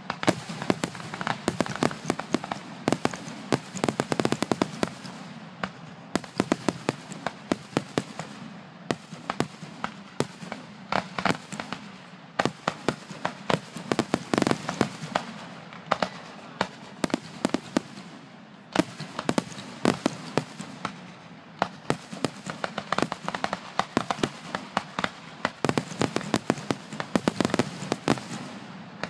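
Fireworks finale barrage: a rapid, near-continuous run of bangs and crackling reports in dense volleys, with a few short lulls between them.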